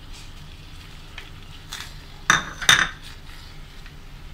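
Raw stingray pieces handled in an earthenware chatti: a soft knock, then two sharp clinks with a short ring, about half a second apart, midway through.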